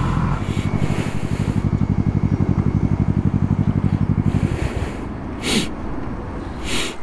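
Motorcycle engine dropping from riding speed to an idle with an even, rapid pulse, then shut off about four and a half seconds in. Two short rustling noises follow near the end.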